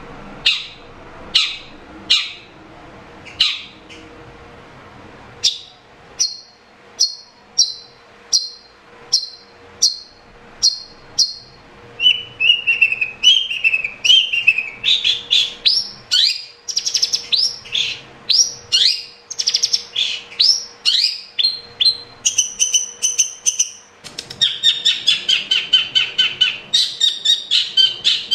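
Long-tailed shrike calling and singing: at first a series of sharp, separate calls, one to two a second, then from about halfway a faster, varied song of quick notes, ending in a rapid string of repeated notes.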